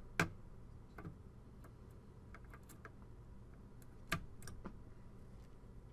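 Scattered small clicks and taps as a CPU chip is handled and lowered into its motherboard socket. A sharper click comes just after the start and another about four seconds in, with fainter ticks between.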